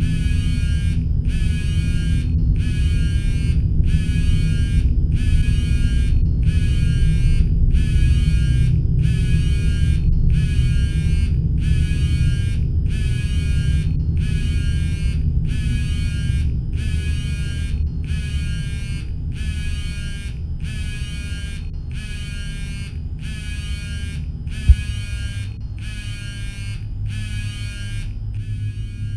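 Horror film sound design: a steady low drone under a buzzing, pulsing tone that repeats about every second and a quarter, with one sharp hit about 25 seconds in.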